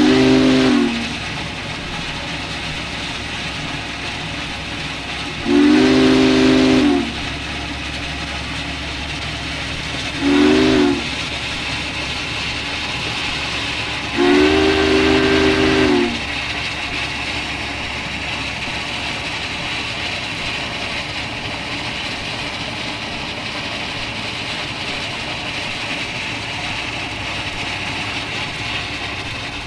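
Steam whistle of Duluth, Missabe & Iron Range 2-8-8-4 Yellowstone No. 225 sounding a chord in four blasts, long, long, short, long: the grade-crossing signal. Under it the locomotive runs steadily at speed, a continuous rumble and hiss.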